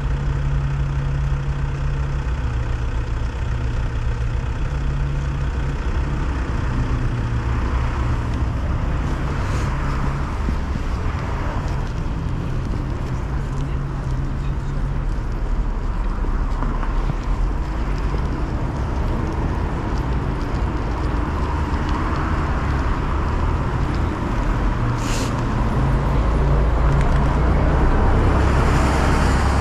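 City road traffic: cars passing in a continuous hum of engines and tyres, swelling as a vehicle goes by near the end.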